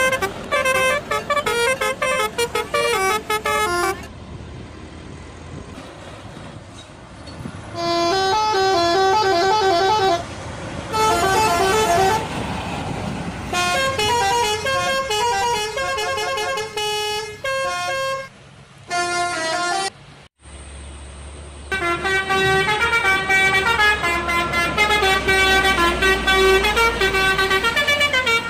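Indonesian bus telolet horns playing short multi-note tunes, one after another with brief pauses and abrupt breaks between them. A steady low engine rumble runs under the long final tune.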